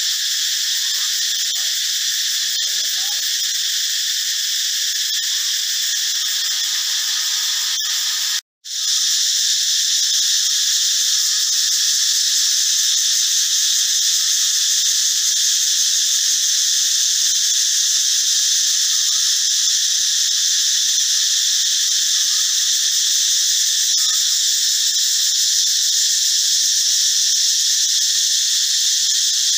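Cicada calling: a loud, steady, high-pitched buzz. It breaks off for a moment about eight seconds in, then resumes slightly louder.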